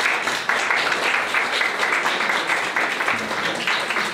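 A small group of people applauding: many hands clapping at once in a steady, dense run of claps.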